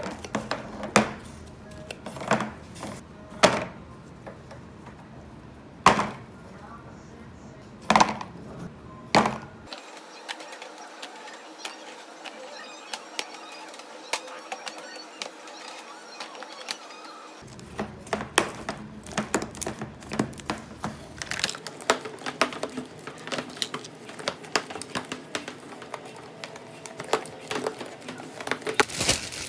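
Soft background music with sharp knocks: about six in the first ten seconds, then a dense run of small clicks and taps from about eighteen seconds in.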